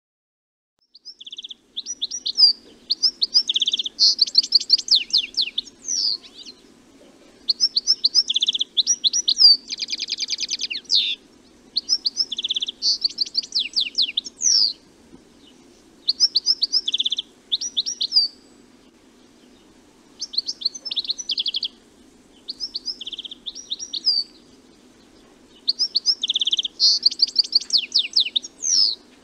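European goldfinch singing: bouts of rapid, high twittering notes mixed with short buzzy trills, each bout lasting a few seconds and broken by brief pauses. A steady low background hum runs beneath the song.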